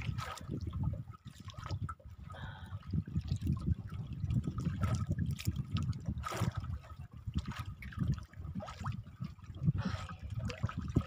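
Water dripping and splashing as a wet line is hauled in hand over hand over the side of a small boat, in many short irregular splashes.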